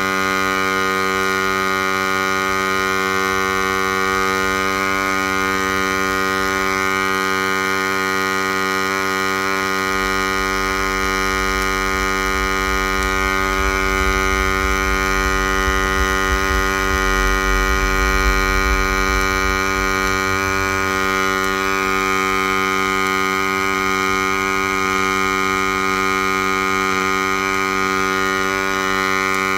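DIY CNC MIG welding rig laying a weld under machine control, a steady electrical hum with many overtones. A deeper rumble swells in from about ten seconds in and fades out around twenty seconds.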